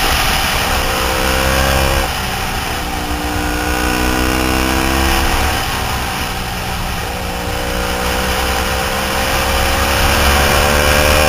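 Triumph Thruxton 900's parallel-twin engine, breathing through a D&D 2-into-1 exhaust and jetted carbs, pulling on the move. Its pitch climbs, drops about two seconds in and again near the middle, then climbs again for the rest. Wind rushes over the microphone under the engine note.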